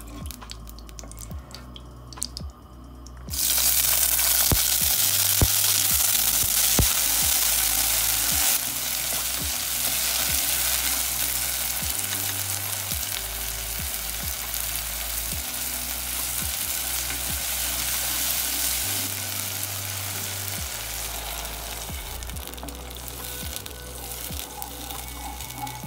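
Peas and carrot slices hitting hot ghee in a pot: a sudden loud sizzle about three seconds in that slowly eases, with a wooden spoon stirring and knocking against the pot. Soft background music underneath.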